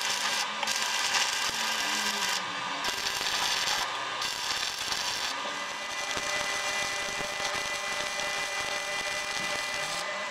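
Stick (arc) welding: the electrode's arc crackling and hissing steadily as it burns against steel, with a few brief breaks.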